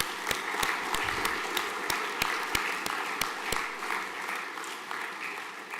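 Audience in a hall applauding, many hands clapping steadily, then thinning and fading toward the end.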